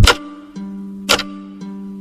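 Music track: held synth notes under a sharp percussive hit at the start and another about a second in.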